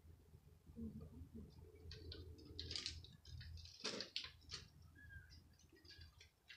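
Faint handling noises of hand planting in a flower bed: scattered light clicks and rustles, with one sharper click about four seconds in, over a low steady background hum.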